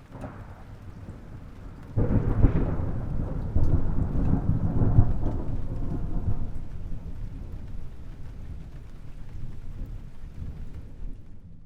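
Thunder: a faint rumble, then a sudden loud clap about two seconds in and a second surge a moment later, rolling on and slowly dying away over several seconds before cutting off near the end.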